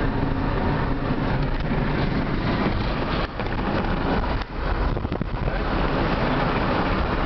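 Road and engine noise inside a moving car's cabin: a steady low rumble of tyres and engine, dipping briefly twice.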